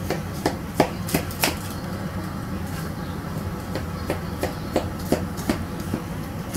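A knife cutting a pan of baked brownies: the blade makes a run of short, sharp taps and scrapes in the baking pan, about two to three a second.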